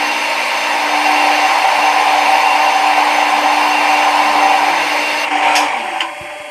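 CNC milling machine running: a steady whine over a loud hiss. It drops off sharply near the end.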